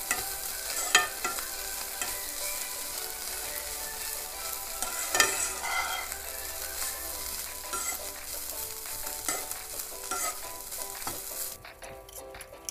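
Shredded chicken and spices sizzling in oil in a nonstick pan while a slotted spatula stirs and scrapes them over a low flame, with a few sharper scrapes against the pan. The sizzle drops away near the end.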